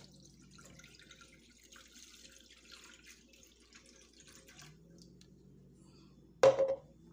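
Milk poured from a jug into a saucepan: a faint, steady splashing pour that stops after about four and a half seconds. Near the end comes a single sharp knock.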